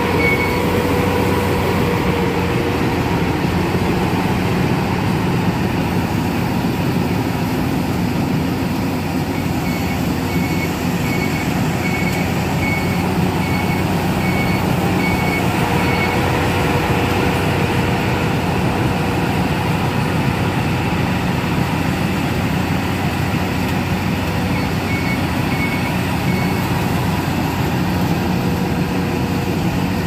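Fieldking tracked multi-crop combine harvester running steadily while cutting paddy rice, a constant loud drone with a steady whine. A beeper sounds in a run of short, evenly spaced beeps about a third of the way in, and again briefly near the end.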